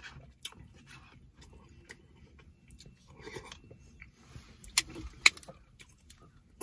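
Close-up eating sounds: a plastic spoon clicking in a paper cup, then chewing. About five seconds in come two sharp clicks half a second apart, the loudest sounds, as a plastic water bottle is handled and raised to drink.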